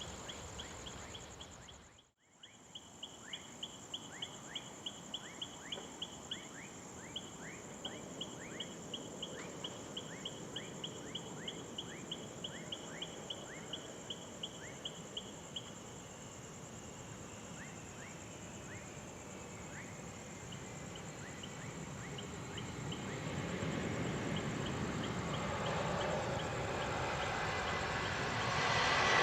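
Night insects chirping: a steady high whine with a rapid, regular clicking of about three pulses a second that stops about halfway through. From about two-thirds of the way in, the engine noise of an approaching Airbus A330 jet airliner rises steadily.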